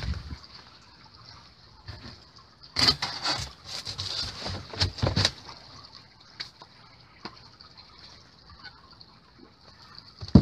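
Crackly rustling and scraping from a foil-faced insulation board being handled and set over a metal bin, in a cluster of bursts lasting a couple of seconds, with a dull thump at the start and a few light knocks later. A faint steady high hiss runs underneath.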